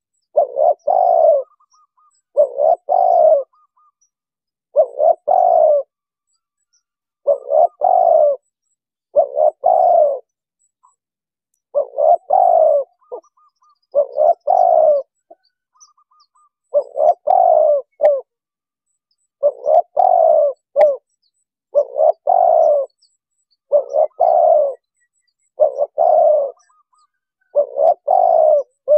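Spotted dove cooing over and over, one low coo phrase about every two seconds, each about a second long, with a few slightly longer pauses between them.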